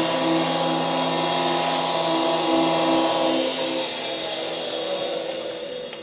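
A live rock band's last chord, with guitars and cymbals, held and ringing out. It dies away from about halfway through.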